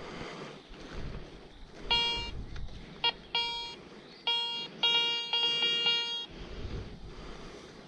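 Garrett metal detector beeping as its search coil is swept over a dug hole: one steady tone broken into a run of short and longer beeps for about four seconds, starting about two seconds in. The beeps are the detector's signal of a metal target in the ground.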